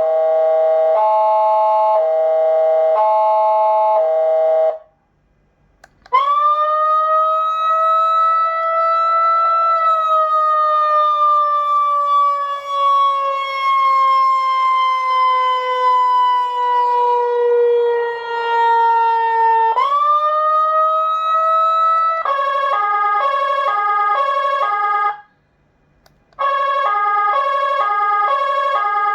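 SA920 200 W electronic siren amplifier sounding through its speaker, cycling through programmed tones. A stepped pattern of alternating pitches breaks off; after a short gap comes a wail that rises quickly, falls slowly for about ten seconds and rises again. Then a fast-alternating multi-pitch pattern starts, stops briefly and resumes near the end.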